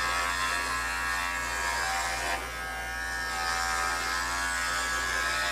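Cordless pet grooming clippers running steadily as they shave through a dog's thick coat, with a slight dip in level about two and a half seconds in.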